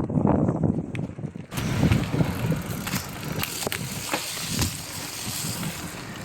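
Marin Gestalt gravel bike rolling along a wet trail: tyre noise with a crunching hiss and scattered clicks and ticks. A low wind rumble on the microphone dominates for the first second and a half, then gives way to a brighter hiss.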